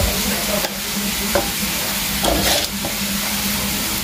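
Stir-fried frog with winged beans sizzling in a hot wok while a metal ladle scoops it out onto a plate, with a few short scrapes and knocks of metal on the wok.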